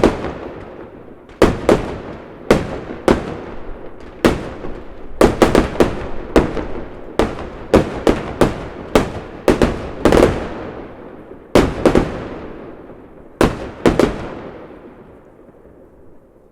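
Fireworks exploding: an irregular volley of sharp bangs, often several in quick succession, each trailing off in a rolling echo. The bangs stop near the end and the rumble fades away.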